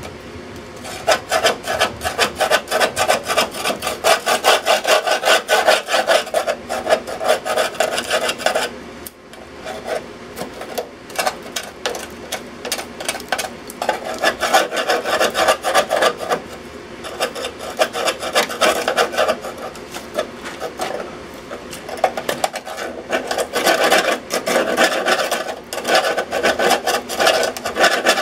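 Hand tool scraping rust off the rusted-out top of a metal electrical box in rapid back-and-forth strokes, with a brief pause about nine seconds in.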